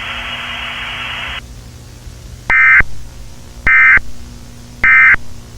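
Emergency Alert System data bursts: after a steady hiss cuts off about a second and a half in, three short, identical, harsh buzzing bursts sound about a second apart. Their brevity fits the end-of-message code sent at the close of an alert.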